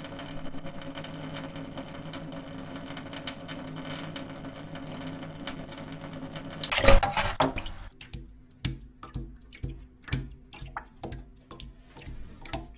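Edited, distorted "tank noise" sound effect with a watery character: a steady wash of running-water noise with a low hum, and a loud surge about seven seconds in. About a second later a quieter, echoing, shortened version takes over, heard as scattered clicks and knocks.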